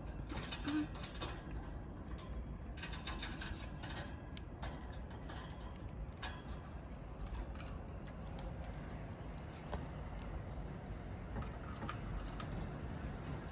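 Pet lovebirds moving about and pecking: scattered light clicks and scratches over a steady low hum, with one louder knock just under a second in.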